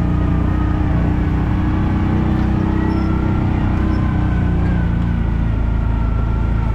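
Kawasaki Mule 3010 utility vehicle running steadily as it is driven along, a continuous engine hum with a faint whine that eases slightly in pitch about halfway through.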